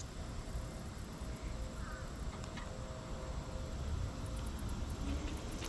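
Quiet pondside outdoor ambience: a steady low rumble, typical of wind on the microphone, with a faint hiss of insects and a brief small bird chirp about two seconds in.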